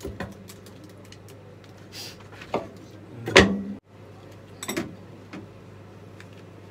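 Kitchen handling sounds as shimeji mushrooms are pulled apart and dropped into a ceramic bowl: a few scattered soft knocks and clicks, the loudest a little over three seconds in, over a low steady hum.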